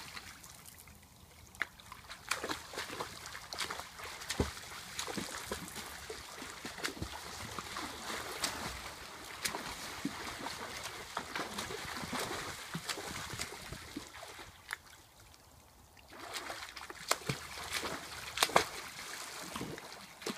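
Two swimmers racing through a swimming pool, their arm strokes and kicking feet churning the water in quick, irregular splashes. The splashing dies down briefly about three-quarters of the way through, then picks up again.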